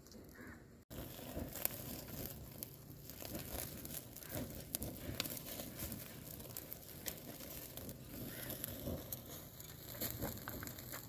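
Eels grilling over an open fire: a steady crackle and sizzle with many small sharp pops, starting about a second in.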